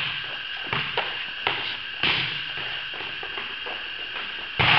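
Volleyballs being hit and bouncing off the court in a large echoing gym: a few sharp hits in the first couple of seconds, and a louder hit near the end.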